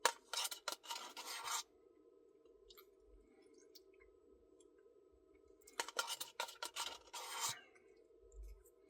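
A spoon scraping inside an ice cream cup, in two bursts of about a second and a half each, about four seconds apart.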